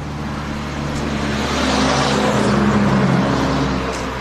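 A truck drives past on the road: its engine and tyre noise swell to a peak about two and a half seconds in, then fade.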